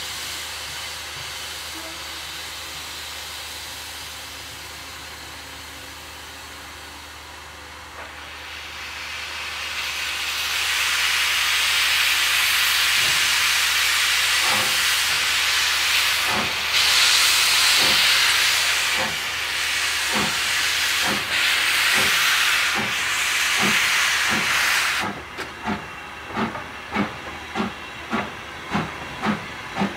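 Hunslet Austerity 0-6-0 steam locomotive starting away with its cylinder drain cocks open: a loud hiss of steam over slow exhaust beats that gradually quicken. About 25 seconds in the hiss stops suddenly as the drain cocks are shut, leaving sharp chuffs at roughly two a second.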